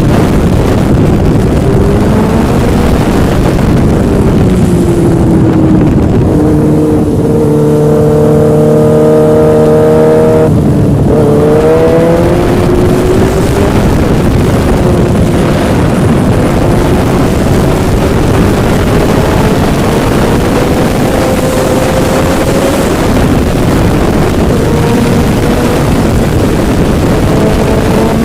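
A Yamaha engine running under way over heavy wind rush, its pitch sliding up and down with the throttle. Partway through it holds one steady pitch for a few seconds, then climbs again as it speeds up.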